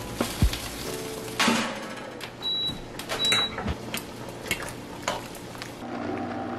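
Kitchen clatter of a utensil knocking and scraping against a cast-iron pot on the stovetop, with scattered sharp clinks. Two short high beeps sound around the middle.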